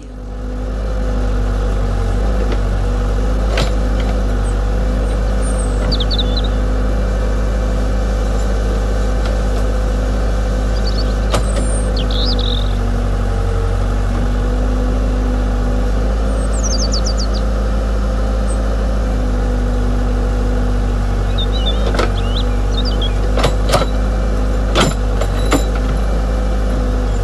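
Steady mechanical drone of an RC construction machine running, with a few sharp clicks about three-quarters of the way in. Birds chirp briefly now and then.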